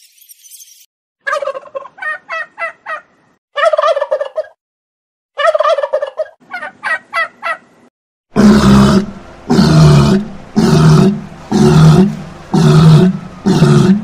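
Three bouts of rapid, pulsed animal calls, then a walrus calling loudly: six deep calls about a second apart.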